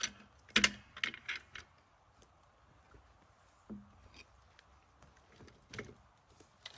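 Knocks and clinks of hard objects being shifted and set down by hand: a quick cluster in the first second and a half, the loudest just after half a second, then single knocks near four and near six seconds.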